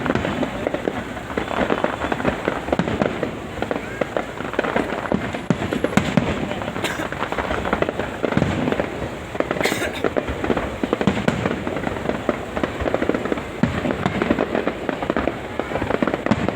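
Fireworks going off in a dense, continuous stream of sharp bangs and crackles.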